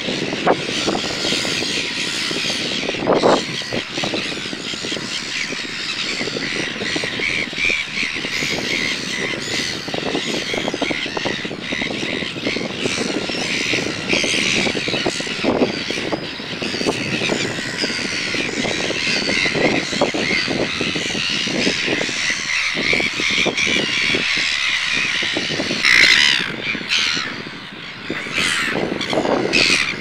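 A gull colony calling: many overlapping calls in a dense, continuous chorus, with a louder flurry of calls about 26 seconds in.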